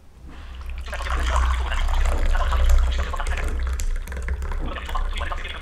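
Tea being poured from a glass teapot into a glass tumbler: a steady stream of liquid splashing into the glass as it fills, starting about half a second in and loudest in the middle.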